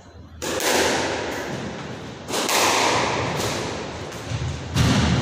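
Squash ball cracked by rackets and smacking the court walls during a rally, three loud strikes about two seconds apart with smaller hits between them, each echoing around the enclosed court.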